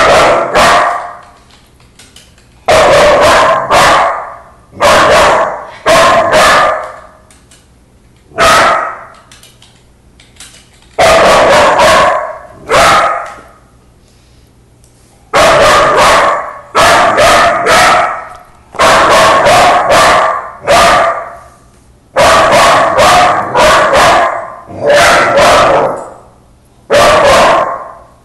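A young dog barking loudly and repeatedly in quick runs of two to four barks with pauses of a second or two between runs.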